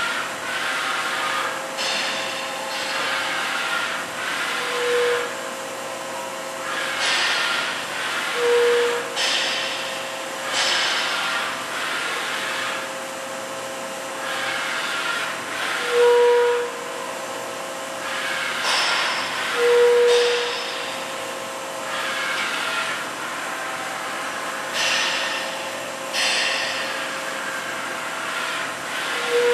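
A Daewoo ACE-H100 horizontal machining center running under power: a steady mechanical hum with a hiss that swells and fades every second or two. A few short mid-pitched tones sound now and then.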